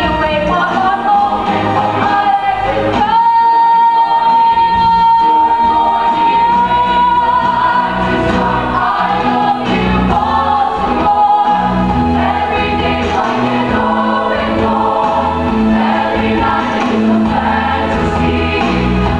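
Choir singing a show-tune medley; a voice holds one long high note from about three seconds in until about seven seconds in.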